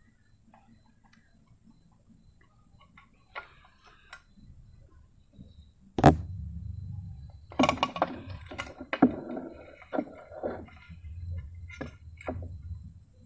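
Handling noise from a homemade amplifier and its wiring. It goes faint at first, then a sharp click about six seconds in, followed by a low rumble and a run of small irregular clicks and clinks as the aluminium case and wires are moved about.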